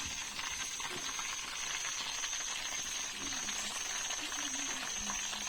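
Fish and curry leaves sizzling steadily in hot coconut oil on a tawa.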